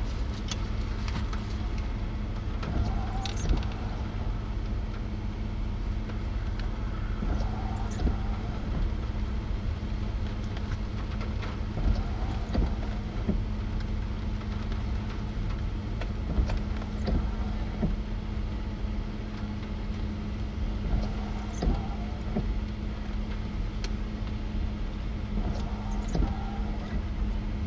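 A parked vehicle's engine idling: a steady hum over a low rumble, with a few light knocks every few seconds.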